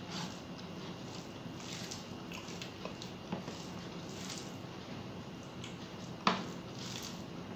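Fingers mixing rice with fish curry on a plate, making soft, wet squishing sounds, with a sharp click about six seconds in that stands out as the loudest sound.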